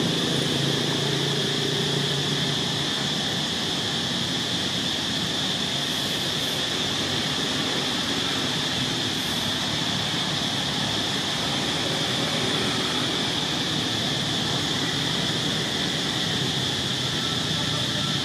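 Steady high-pitched insect drone with a hiss, holding one pitch throughout, with a low hum fading out in the first few seconds.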